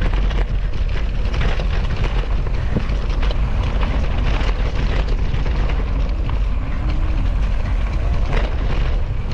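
Wind rushing over the microphone of a camera on a mountain bike riding fast down a dirt forest trail, with rattles and knocks from the bike over the rough ground.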